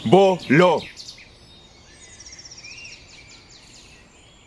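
A man says one word, then small birds chirp and twitter in the background, with a rapid high trill about two seconds in, over a faint outdoor hiss.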